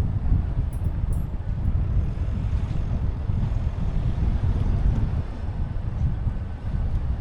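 Kia Sportage on the move: a steady low rumble of road and engine noise with gusty wind buffeting the microphone.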